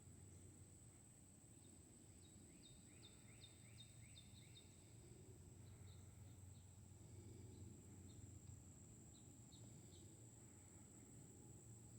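Near silence outdoors with faint bird chirps: a quick run of about eight short chirps around two to four seconds in, then a few scattered ones. A steady faint high tone and a low rumble sit underneath.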